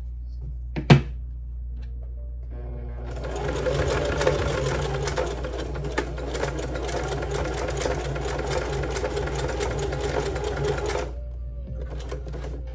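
Singer Heavy Duty sewing machine running, stitching through climbing rope for about eight seconds before stopping abruptly near the end; a single sharp click comes about a second in.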